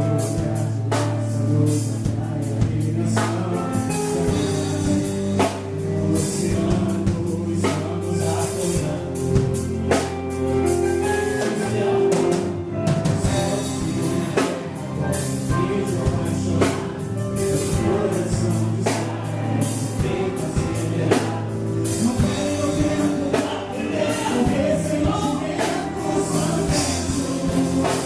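Live gospel band performance: singing over a drum kit and instruments, with voices joining in together.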